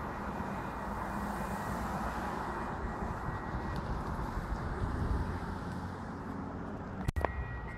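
Steady rumble and hiss of road traffic moving through a busy intersection. There is a sharp click about seven seconds in, and a thin, high, steady whine comes in right after it.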